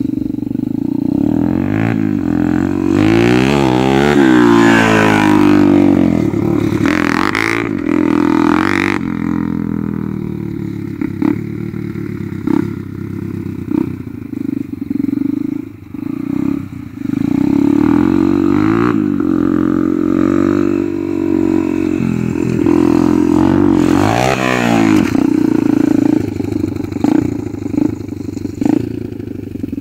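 Dirt bike engine revving up and down as it rides a dirt track, its pitch sweeping up and then down as it passes close, once a few seconds in and again about three-quarters of the way through.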